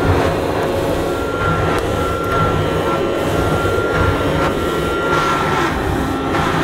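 A 1969 Hoover Dustette handheld vacuum cleaner running steadily with a motor whine, its floor nozzle pushed over carpet on the end of the hose and wand.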